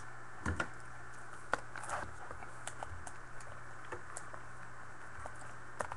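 Shrink-wrap cellophane on a trading-card box crackling and crinkling in scattered light clicks as it is peeled off by hand.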